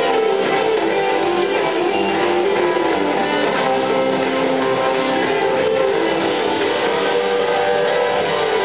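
Live rock band playing an instrumental passage: electric guitars playing melodic lines over drums and bass, heard from the audience.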